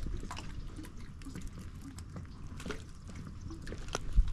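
Water dripping and small clicks and knocks as a small bass is handled in a boat after being caught on a jig, over a steady low rumble. A louder knock comes near the end.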